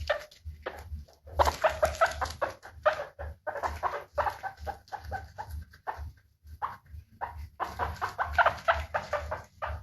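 Guinea pig squeaking in quick runs of short, pitched calls, broken by brief pauses about a second in and again around six to seven seconds in.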